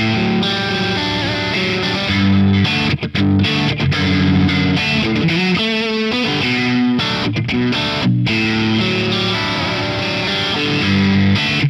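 Electric guitar with distortion playing an improvised passage of held notes, with a rapid wavering run about six seconds in.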